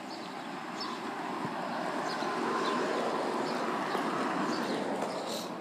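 Golf cart driving past, its running noise swelling as it comes close and then fading away.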